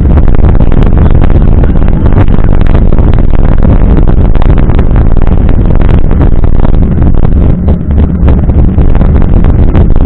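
Wind and road noise on a mountain bike's fork-mounted action camera riding over wet asphalt: a loud, steady rumble with many small knocks and rattles running through it.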